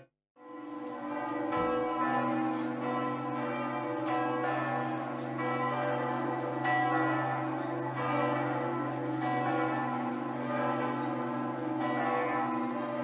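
Church bells ringing, several bells sounding together with overlapping strikes and a sustained hum. The sound cuts out at the very start and swells back in within half a second.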